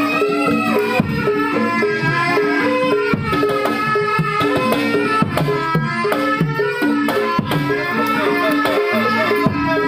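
Javanese gamelan music for a kuda lumping horse dance: kendang hand drums beat a steady rhythm under a melody of sustained pitched notes that step from pitch to pitch.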